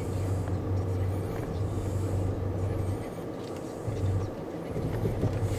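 A vehicle engine running steadily at low revs, a low hum that dips briefly about three seconds in.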